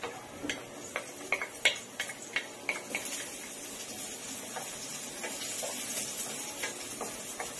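Wooden spatula knocking sharply about ten times as chopped onion is scraped into a hot frying pan, then a steady sizzle of the onion frying in oil with garlic, with a few clicks as the spatula stirs.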